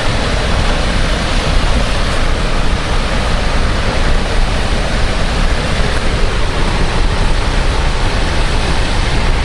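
Steady, loud rushing of a high waterfall with a heavy flow of water.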